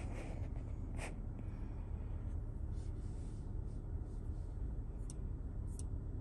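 Low steady hum inside a car's cabin, with a few soft clicks and rubbing sounds: one near the start, a louder one about a second in, and faint ticks near the end.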